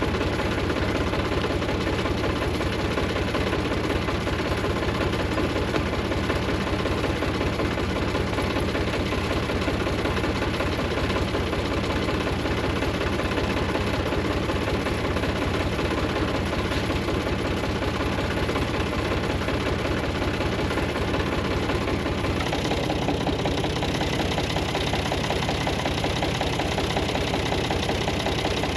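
Tractor engine running steadily, its sound shifting in character about two-thirds of the way through.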